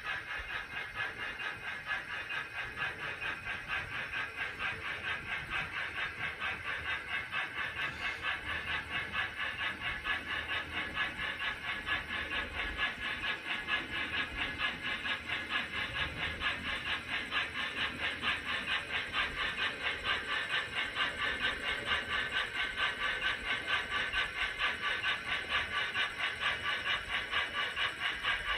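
HO scale model steam locomotive's simulated chuffing, a steady hissy beat at about four chuffs a second as the engine pulls the work train along at low speed.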